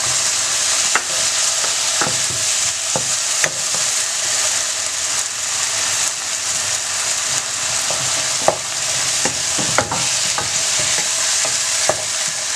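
Biriyani masala of fried spice powders with freshly added ground herb and green-chilli paste sizzling steadily in a pan. It is being stirred with a spoon, with scattered scrapes and clicks against the pan throughout.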